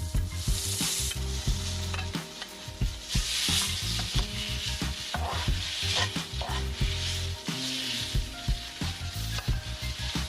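Shrimp frying in butter and garlic in a pan: a steady sizzle that swells and eases several times, with a utensil stirring and clicking against the pan.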